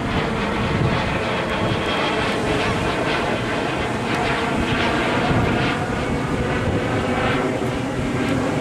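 Twin Honeywell HTF7700L turbofans of a Cessna Citation Longitude business jet flying overhead: a steady, even jet rush with faint whining tones running through it.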